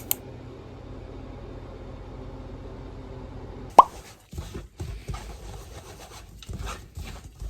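A steady low hum, then a little past halfway a single sharp plop whose pitch falls quickly, followed by scattered light knocks and handling sounds.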